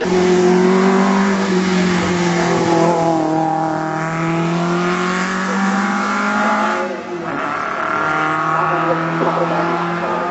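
Classic race car's engine running hard up a hillclimb course, its note sagging slightly, cutting out briefly about seven seconds in as the throttle is lifted, then pulling again.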